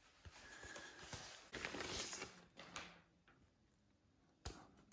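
Quiet handling noises as the foam RC model plane's parts are moved about: a stretch of soft rustling, then a single sharp click or knock near the end.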